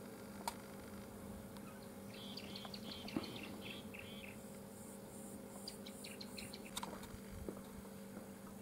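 Wild birds chirping in a quick run of repeated short calls a couple of seconds in, with more scattered chirps later, over a steady low hum and a few sharp clicks.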